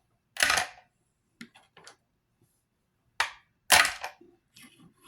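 A string of sharp clicks and knocks from small makeup containers and tools being picked up, opened and set down on a hard surface. The loudest come about half a second in and again after about three seconds.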